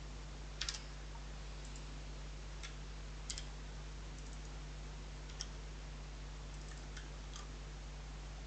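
Scattered clicks of a computer keyboard and mouse during code editing: a double click under a second in, then single clicks every second or so, over a steady low hum.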